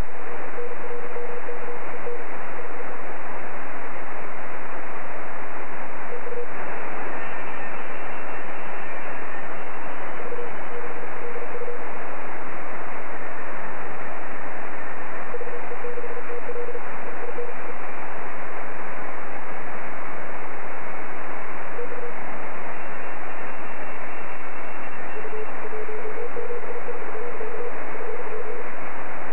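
Amateur radio shortwave receiver hiss, with a Morse code (CW) signal keyed on a steady mid-pitched tone in short groups every few seconds and fainter, higher-pitched CW signals now and then.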